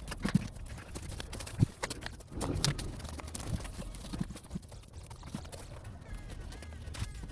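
A series of irregular knocks and clatter, the loudest about one and a half seconds in, over a steady low rumble.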